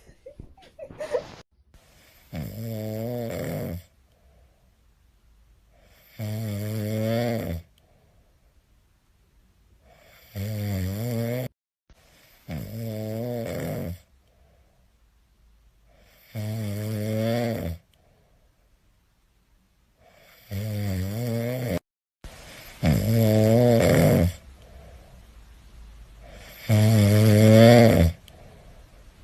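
Sleeping cat snoring: a series of about eight pitched snores, each about a second and a half long and a few seconds apart, growing louder toward the end.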